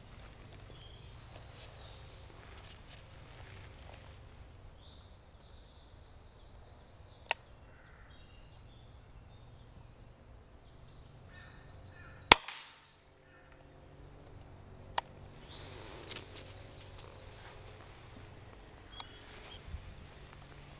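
Quiet woodland background with birds calling, broken about twelve seconds in by the single sharp crack of a moderated Daystate MK4 pre-charged pneumatic air rifle firing. A few fainter clicks come before and after it.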